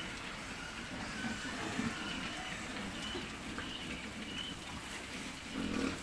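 Group of pigs eating at a feed trough: a busy, continuous mix of chewing and jostling noises, loudest briefly near the end.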